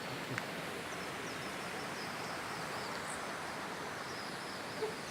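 Steady outdoor background noise with a faint, repeated high chirping over it and a couple of small clicks.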